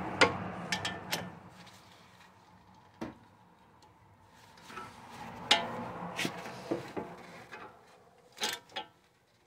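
Hand tools clinking, knocking and scraping against a car's front suspension and strut hardware as bolts are worked on: scattered sharp clicks with quiet stretches between them, a distinct knock about three seconds in and a pair of clanks near the end.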